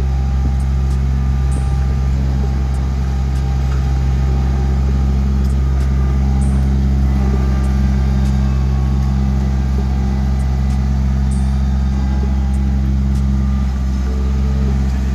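Compact farm tractor's engine running at a steady speed as the tractor works the ground with a rear box blade, a constant low drone with no change in pitch.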